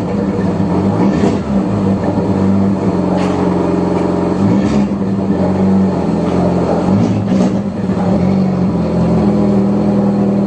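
Peugeot 307 running with a straight-through exhaust, just the pipe and no muffler, rumbling loudly. The deep exhaust note holds mostly steady, wavering slightly in pitch now and then.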